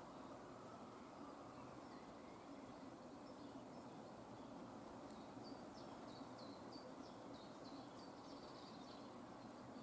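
Faint high bird chirps, a quick run of short falling notes from about halfway through to near the end, over a steady background hiss.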